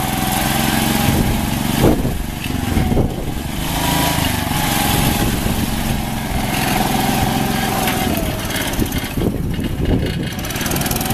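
Small engine of a homemade off-road buggy running steadily under load as it drives through muddy water, with water splashing around the wheels.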